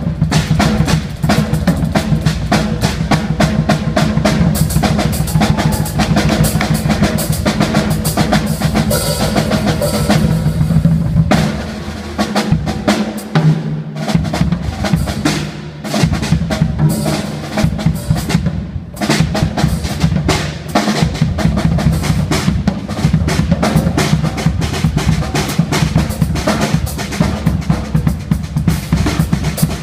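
Solo on a drum kit: fast, dense strokes and rolls across snare, toms and bass drum with cymbals. The playing thins out for a few seconds about halfway through, the low drums dropping away, then builds back up.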